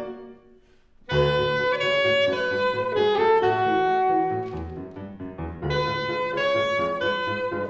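Live instrumental ensemble music: a note dies away into about a second of near silence, then the ensemble comes in with held melodic notes over a low bass line, easing off briefly a little past the middle before continuing.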